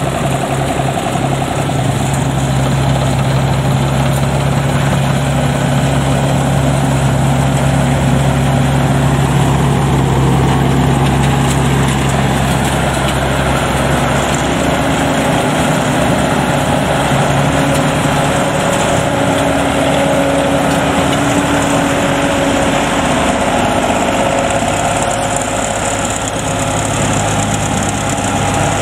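Engines of a tracked rice combine harvester and its tracked carrier running steadily. The engine note shifts about halfway through, a low hum giving way to higher tones.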